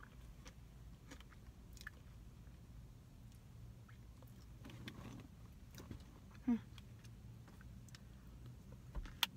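Faint chewing and mouth sounds of a person eating an acai bowl with granola, with scattered small clicks and a short voiced 'mm' about two-thirds of the way through. A low steady hum runs underneath.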